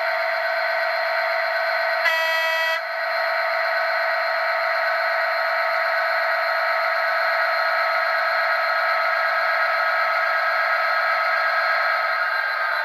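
ESU LokSound V4 sound decoder in a model Class 77 (EMD JT42CWRM) diesel locomotive playing its diesel engine sound through the model's small speaker, running steadily. A short horn blast sounds about two seconds in.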